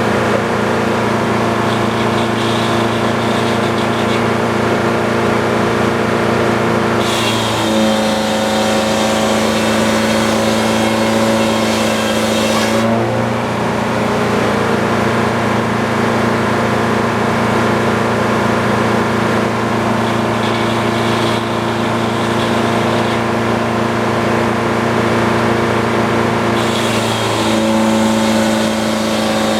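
Sawmill engine running steadily, its pitch dropping twice as it comes under load with a hiss of cutting added, once about a quarter of the way in for several seconds before recovering and again near the end.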